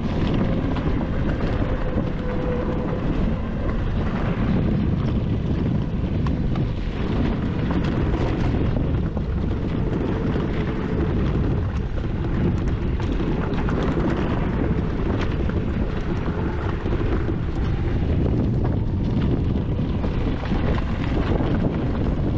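Wind buffeting the microphone over the steady rumble of a Hecht 59399 Army electric ATV on the move.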